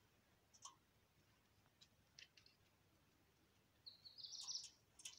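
Near silence, with a few faint clicks and, about four seconds in, a brief run of high bird chirps.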